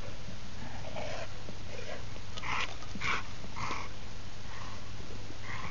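A pit bull's short, breathy snuffles, several in a row, as it noses and mouths a plastic traffic cone, over a steady low hum.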